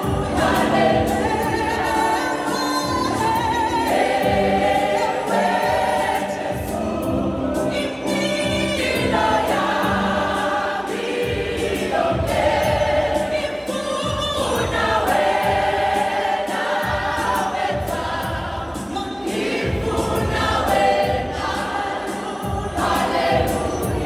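A mixed gospel choir of women and men singing.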